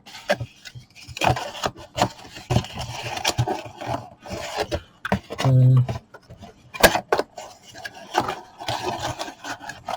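Handling noise from unpacking a small plastic USB switch box and its bits: irregular rubbing, scraping and clicks, with one sharp click about seven seconds in. A short low hum comes a little past halfway.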